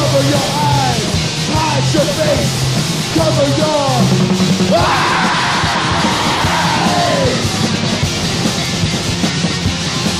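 Rock music soundtrack with a shouted, sung vocal over a steady, repeating bass line.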